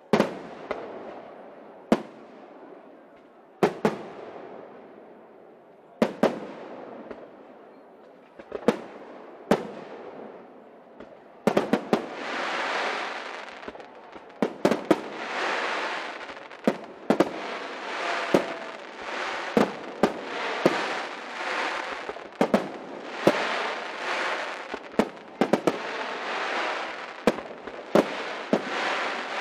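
Aerial firework shells bursting, one sharp bang every two seconds or so at first. From about twelve seconds in it becomes a dense barrage of rapid bangs over continuous crackling, as gold crackling shells fill the sky.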